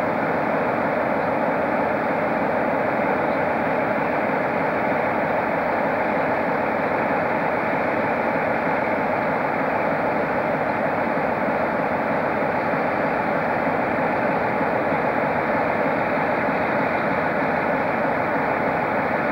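Diesel locomotive engine idling steadily, an even running sound with no change in pitch or level.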